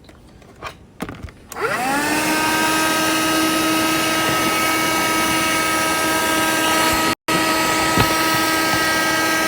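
Small handheld wet-and-dry vacuum cleaner switched on about a second and a half in, after a few clicks. Its motor spins up with a rising whine, then runs steadily at its single power level with a high whine over the hiss of the airflow. The sound cuts out for a split second near the end.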